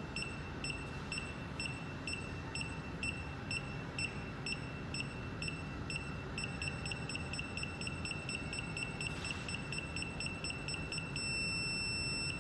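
Security alarm keypad beeping through its exit delay after being armed: short high beeps about twice a second, speeding up around halfway through, then a steady continuous tone near the end as the system arms.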